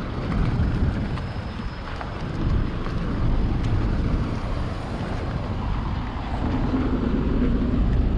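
Outdoor town ambience with a steady low rumble and wind buffeting the microphone.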